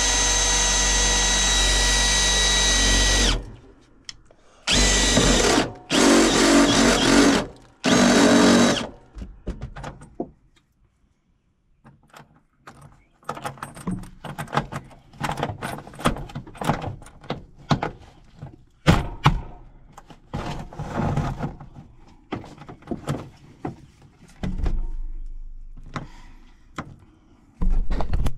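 Power drill boring a hole for a wire to pass through: it runs steadily with a whine for about three seconds, then in three shorter bursts. After that comes a long stretch of irregular clicks and knocks as the work is handled, with another short burst near the end.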